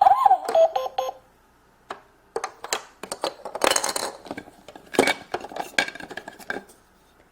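Toy electronic cash register giving a short sequence of stepped electronic tones, then plastic toy food and register pieces clicking and clattering as they are handled.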